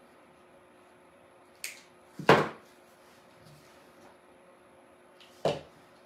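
Hand clippers snipping through the wire stems of artificial flowers: a light click, then a sharp snap about two seconds in, the loudest, and another snap near the end.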